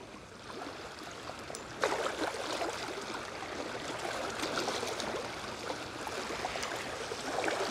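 Seawater washing against the rocks at the shoreline, a rushing wash that swells up suddenly about two seconds in and then runs on steadily.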